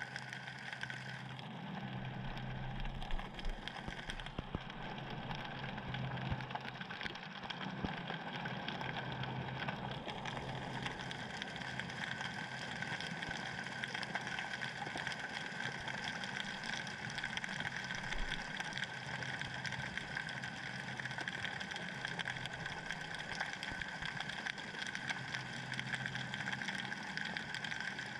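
Underwater ambience heard by a submerged camera: a steady low hum and a constant higher whine, under a dense crackle of tiny clicks.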